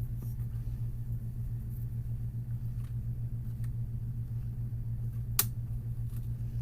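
HP 15 laptop's plastic screen bezel being pried loose with a spudger: a few faint ticks, then one sharp snap about five seconds in as a clip lets go. A steady low hum runs underneath.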